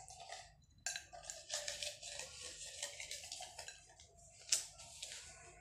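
Folded paper slips rustling and crackling in a plastic cup as a hand rummages through them, with one sharper crackle near the end; a girl laughs.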